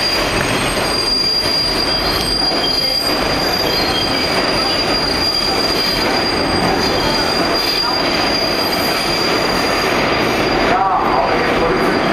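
R142 subway train running around the tight City Hall loop curve, its wheels squealing against the rail: a steady high squeal over the running rumble of the car, with shorter screeches coming and going and a wavering lower squeal near the end.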